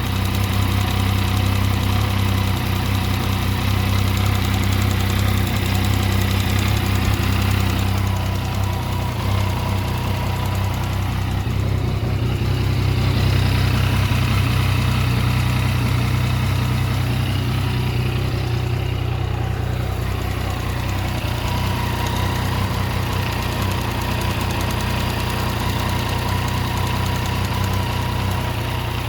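Yamaha MT-09's inline-three engine idling steadily, making an abnormal noise whose cause the owner does not know.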